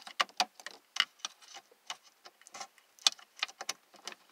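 Irregular sharp clicks and small metallic clinks, more than a dozen: a steel hemostat being worked at a screw to grab and pull off a strip of electrical tape.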